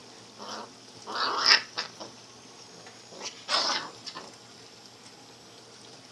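German shepherd puppies play-fighting, giving a few short, high yips and squeals, loudest about a second and a half in.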